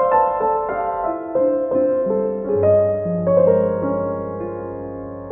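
Background piano music: a run of notes falling in pitch, then settling into held chords with a low bass note joining about halfway through.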